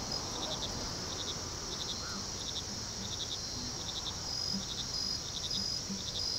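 Crickets chirping: short chirps of a few quick pulses each, about two a second, over a steady high-pitched insect trill.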